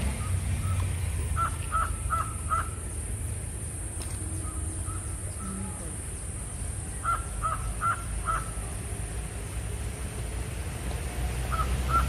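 A crow cawing in runs of four short caws, one early and one in the middle, then twice more near the end, over a steady low rumble.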